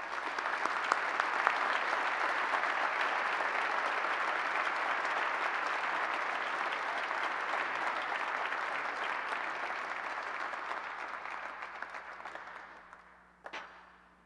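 Audience applauding, a steady clapping that fades away about twelve seconds in. A single knock comes near the end.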